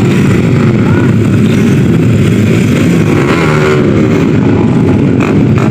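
Small motorcycle engines running loudly, with a change in engine pitch about three to four seconds in as a bike revs or passes.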